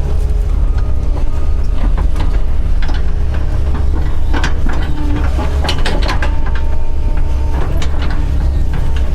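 Doosan DX140 excavator's diesel engine running steadily under work, with scattered sharp cracks and clatter throughout.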